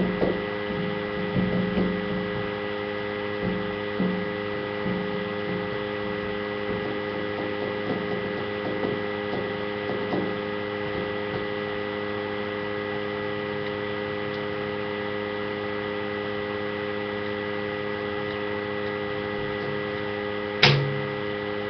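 Steady electrical hum made of several steady tones, with a few faint low bumps in the first few seconds and a single sharp click near the end.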